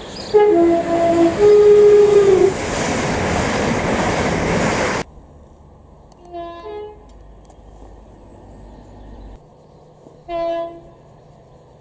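Train horn sounding a loud two-note blast, low then high, over the rush of a train running through a station, which cuts off suddenly about five seconds in. Then a fainter two-note horn, and a single short horn blast near the end.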